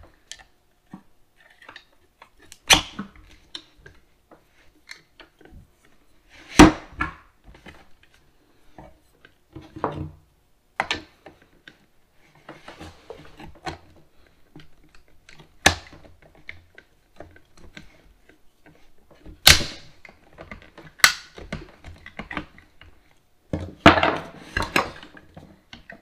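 Metal clicks and clinks of a small screwdriver and the shift lever working against the GM steering column's shift-lever tension spring, compressing the spring to fit the lever. Sharp clicks a few seconds apart with faint scraping ticks between, and a quick run of clicks near the end.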